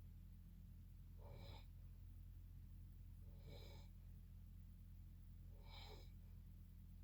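A sleeping person's faint snoring breaths: three short, breathy sounds with a slight whistle, about every two seconds, over a steady low hum.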